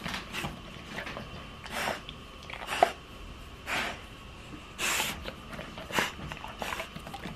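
A dog snorting and sniffing up close in short breathy bursts about a second apart, with a sharp click a little before the middle.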